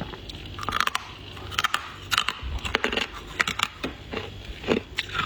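Flaky freezer frost being bitten and chewed: a quick, irregular run of crisp crunches and crackles.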